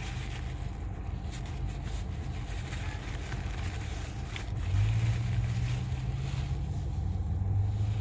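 Steady low engine rumble, like a vehicle idling. About five seconds in, a louder, even hum joins it.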